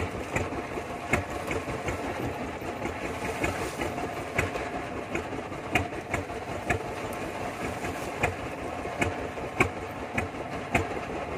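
A fishing boat's engine running steadily, with irregular sharp clicks and knocks over it.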